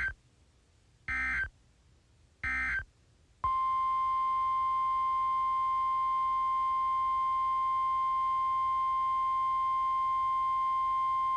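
NOAA Weather Radio emergency alert signal: three short bursts of SAME digital data tones about a second and a half apart, then a steady single-pitch 1050 Hz warning alarm tone that starts a few seconds in and holds.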